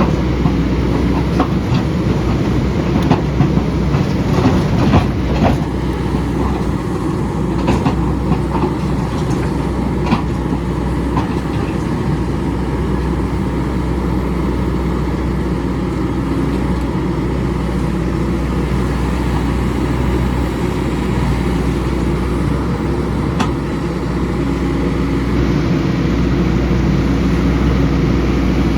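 Excavator engine running steadily under load, with a clatter of sharp knocks and scrapes as the bucket works rock. The knocking is busiest in the first dozen seconds or so, then the engine carries on mostly alone.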